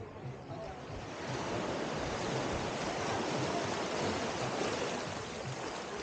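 Small waves washing up the sand and over the rocks at the shoreline: a steady hiss of surf that swells about a second in and eases slightly near the end.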